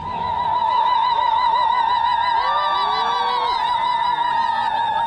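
A high, long-held sung note with a wavering vibrato, with other voices sliding up and down beneath it, in a Naga folk dance song.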